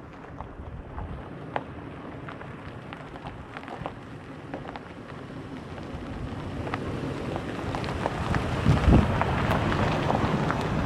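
Steady rushing noise scattered with short ticks, growing louder, with wind buffeting the microphone near the end.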